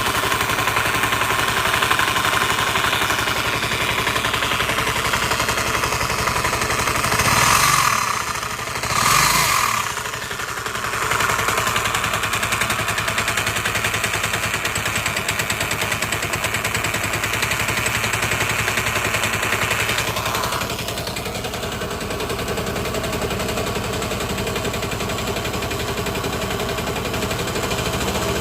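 Vespa LT 125 scooter engine running with a fast, steady rattle, which appeared after the scooter sat unused for a few months. The sound swells briefly twice, around eight and nine seconds in.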